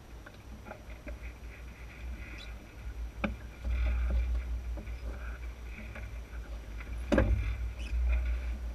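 Water rushing past the hull of an Enterprise sailing dinghy under way, with wind buffeting the microphone in a low rumble that grows louder a few seconds in. Two sharp knocks come, one about three seconds in and a louder one about seven seconds in.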